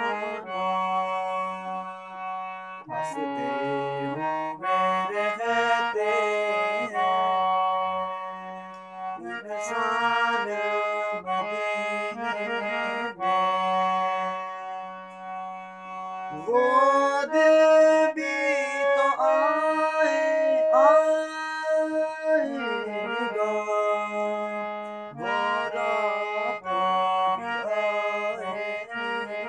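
Harmonium playing a melody of held reed notes over a steady low drone note. A wordless voice slides and wavers along with it for several seconds past the middle.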